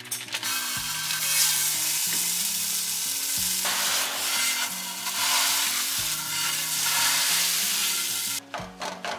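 Raw breakfast sausage sizzling loudly in a hot skillet as it is pressed and broken up with a plastic meat chopper, over background music with a steady beat. The sizzle cuts off abruptly near the end.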